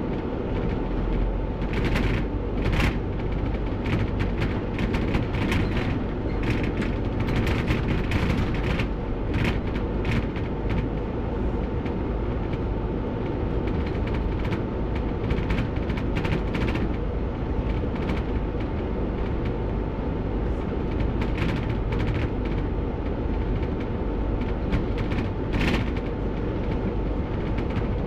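Bus running, heard from inside the driver's cab: a steady low engine and road rumble with a thin, constant high whine, and frequent sharp rattles and knocks from the body.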